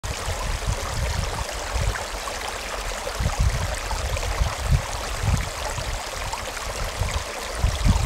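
Shallow rocky creek rushing and splashing over a small riffle of stones, a steady even rush, with uneven low rumbles underneath.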